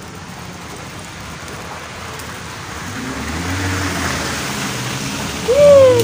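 A vehicle passing on a wet, snowy street: a rain-like tyre hiss that swells over a couple of seconds, with a low rumble under it. A woman's short 'oh' comes near the end.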